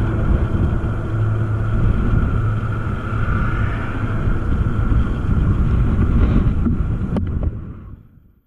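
A small engine runs steadily while riding, under wind rumble on the microphone. A brief click comes about seven seconds in, and then the sound fades out.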